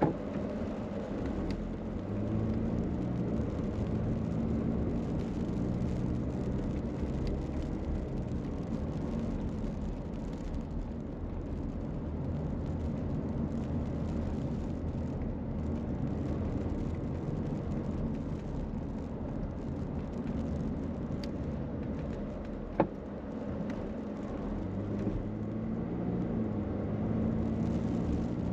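Car engine and road noise: a steady low rumble with an engine hum that drifts up and down in pitch. A single sharp click about three-quarters of the way through.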